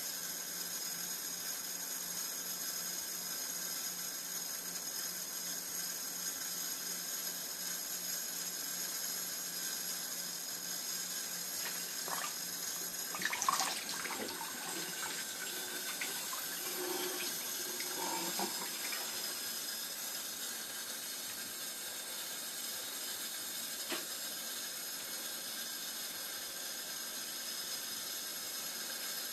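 Tap water running steadily into a sink, with a few brief louder sounds about halfway through.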